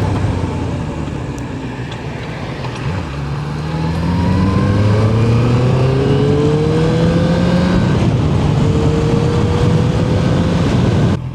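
Honda CB650F inline-four engine pulling under acceleration while riding, its pitch climbing steadily, with a short break about eight seconds in as it shifts up, under steady wind noise.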